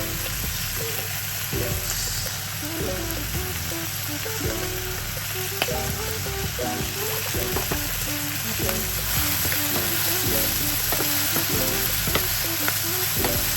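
Steady sizzling of food frying in oil in a pan, with scattered clicks of a utensil against the pan as it is stirred.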